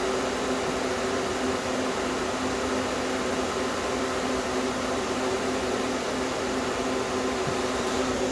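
Small Tecumseh refrigeration compressor of a homemade 2400 BTU air-conditioning system running steadily with a constant hum, along with its condenser water pump. A sharp click comes at the very end.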